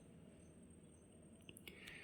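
Near silence: room tone with a faint, steady, high-pitched whine and a couple of faint clicks about one and a half seconds in.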